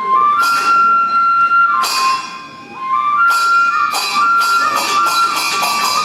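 Kagura music: a bamboo flute plays long held high notes with short slides between them, over sharp percussion strikes that come every second or two.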